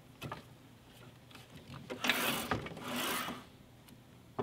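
Makita compound miter saw head being tilted over on its bevel pivot, with the blade not running: two short rasping scrapes of metal sliding on metal, about two and three seconds in.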